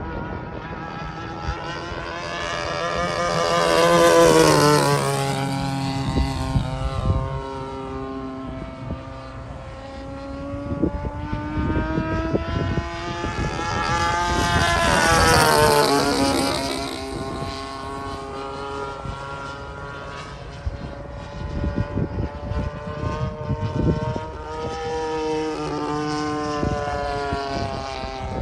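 Single-cylinder two-stroke DLE-35RA gas engine of a Hangar 9 P-47 Thunderbolt RC model, buzzing steadily in flight. It flies past twice, about four seconds in and again about fifteen seconds in, getting louder as it approaches and dropping sharply in pitch as it goes by.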